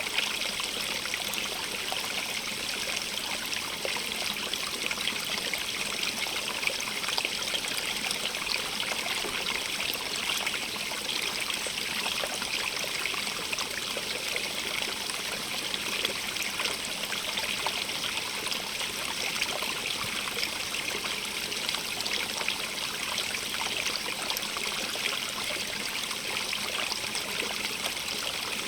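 Stream of running water, burbling and trickling steadily over stones.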